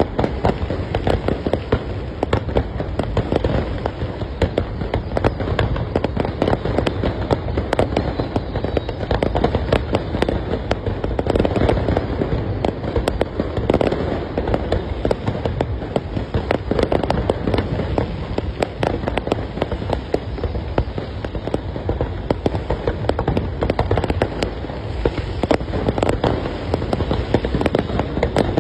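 Aerial fireworks going off in a dense, unbroken barrage of rapid bangs and crackling.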